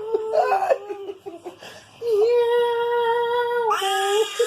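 A baby crying: a few short whimpering sounds, then a long steady wail of about a second and a half, and a shorter wail near the end.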